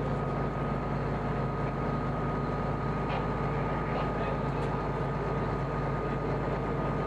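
Steady low rumble of an idling vehicle engine, with a thin constant whine over it and a few faint ticks about three to four seconds in.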